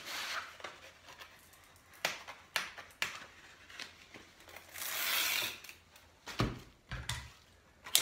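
A reel of double-sided Velcro hook-and-loop tape being handled: light clicks and scratches as the end is picked free, then a rasping rip of about a second as a length of tape is pulled off the reel. A few dull knocks follow near the end.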